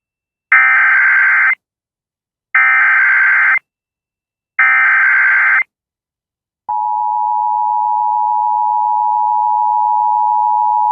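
Emergency Alert System tornado-warning tones: three screechy digital data bursts (the SAME header), each about a second long and a second apart. About seven seconds in, the steady two-tone attention signal starts and holds for about four seconds.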